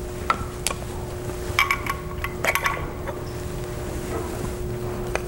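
A few light clicks and clinks as wear pads are pulled off the stainless-steel rotors of a rotary lobe pump, most of them in the first three seconds, over a steady low hum.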